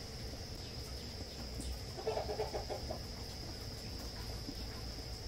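A chicken clucking: a short quick run of clucks about two seconds in, over a steady high insect drone.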